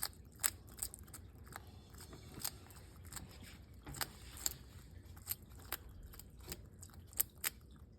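Bearded dragon biting and crunching hard-shelled patent leather beetles: irregular sharp crunches and clicks, about a dozen over several seconds.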